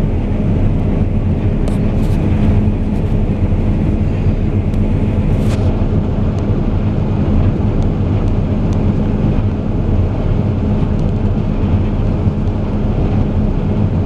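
Case IH combine harvester running steadily while cutting wheat, its diesel engine and threshing machinery heard from inside the cab as a continuous low drone.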